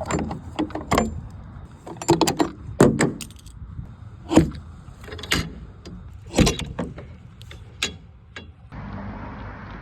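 A run of irregular knocks and clatters, about a dozen, from things being handled and set down. About nine seconds in, a steady hiss takes over.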